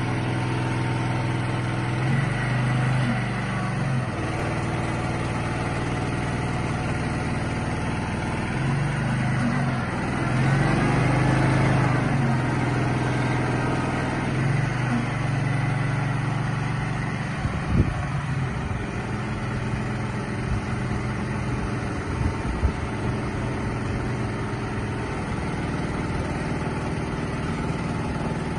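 Mini crawler crane's engine running steadily, louder for a stretch near the start and again through the middle as it works. A few sharp knocks later on.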